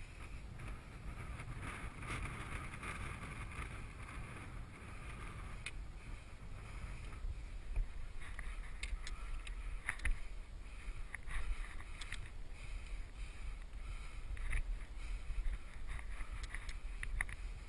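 Wind buffeting a body-worn camera's microphone with a steady low rumble, overlaid from about eight seconds in by scattered clicks and scrapes of hands and boots on rock as the climber scrambles up.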